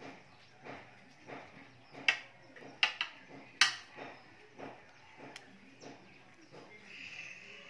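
Fresh banana leaves rustling and crackling as they are folded into a wrapper, with three sharp crackles in a row near the middle. Under it runs a soft, regular pulse about once every two-thirds of a second.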